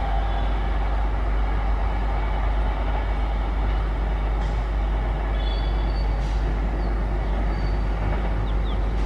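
Diesel-electric locomotive engine running close by: a steady low rumble. A few faint high chirps come in about halfway through and again near the end.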